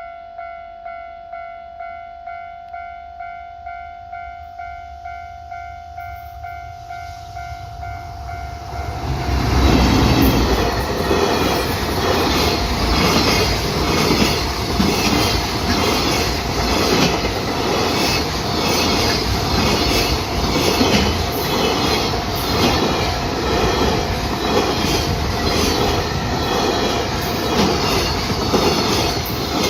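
Japanese level-crossing warning bell ringing in a fast, even ding-ding of about two strikes a second. From about seven seconds in a train approaches, and from about nine seconds it passes over the crossing, its wheels clattering rhythmically over the rail joints, louder than the bell, which keeps ringing underneath.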